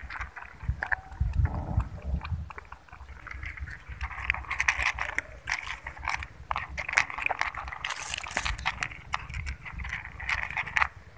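Cats lapping milk from plastic tubs: a fast, uneven run of small wet clicks.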